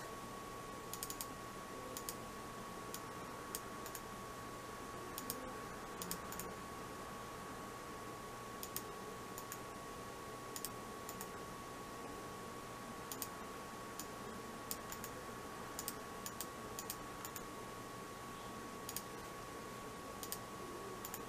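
Sharp clicks of a PICTEK wired gaming mouse's buttons, single and in quick pairs, scattered irregularly, over a faint steady high tone.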